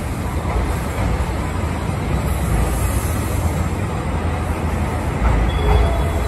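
Train of stainless railcars hauled by a DE-class diesel locomotive rolling past, a steady low rumble of wheels on the rails.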